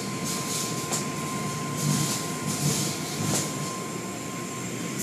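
Automatic car wash tunnel machinery running: water spray hissing in surges over a low rumble of brushes and motors, with a steady high whine.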